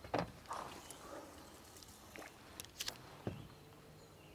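Faint, scattered knocks and clicks of fishing gear and the boat being handled. The loudest knock comes right at the start, a few sharper clicks follow near the three-second mark, and there is a low knock just after.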